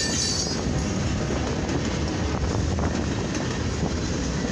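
Freight cars of a passing mixed freight train rolling by close at hand: a steady rumble of wheels on the rails with clatter from the trucks.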